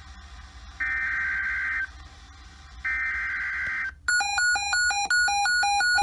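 Emergency Alert System SAME header tones: two one-second bursts of buzzy digital data about a second apart. About four seconds in, a rapid pulsing alert tone follows, beeping back and forth between two pitches.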